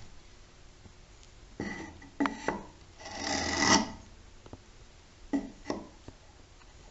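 A hand tool scraping across the end of a pine board held in a bench vise: a few separate rasping strokes, the longest and loudest about three seconds in.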